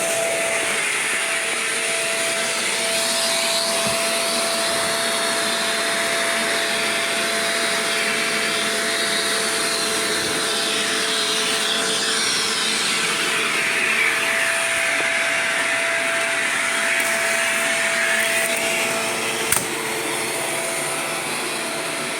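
Shark Rotator upright vacuum cleaner running steadily, a continuous motor roar with a thin steady whine and a hiss that rises and falls. Near the end a sharp click sounds, after which the whine drops out and the vacuum runs a little quieter.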